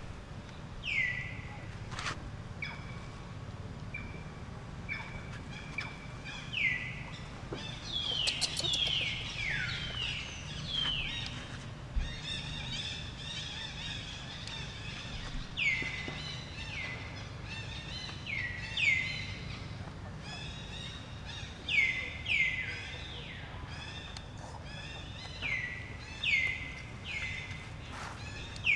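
Repeated high calls, each sliding down in pitch and levelling off into a brief held note, several overlapping about a third of the way in and again through the last third. A few sharp clicks and a steady low hum run beneath.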